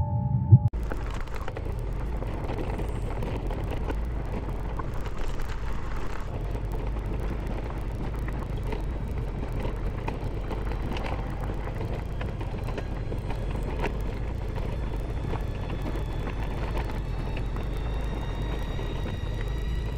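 A throbbing intro hum cuts off within the first second, then a motorcycle engine runs steadily as the bike is ridden along a rough forest dirt trail. It is a low rumble with scattered knocks from bumps in the track.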